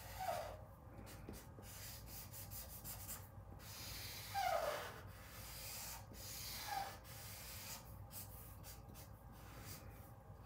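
Felt-tip marker rubbing on paper in repeated back-and-forth coloring strokes, a faint scratchy hiss that stops and starts with each stroke. Three short falling squeaks cut through it, the loudest about halfway through.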